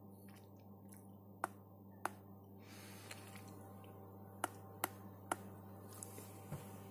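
Sharp single clicks of the small Connect button and power switch on a Bluetooth keyboard being pressed, five in all, three of them in quick succession about halfway through; the keyboard is meant to pair with the iPad but stays undetectable. A steady low hum runs underneath.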